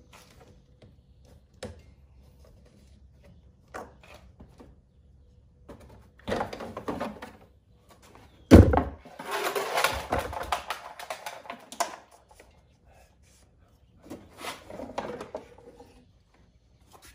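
Plastic engine cover of a Cadillac CTS 3.6L V6 being pulled off its mounts: a few faint clicks, then a sharp thump about halfway through as it pops free, followed by several seconds of plastic rattling and scraping as it is lifted away. Another short plastic rattle comes near the end.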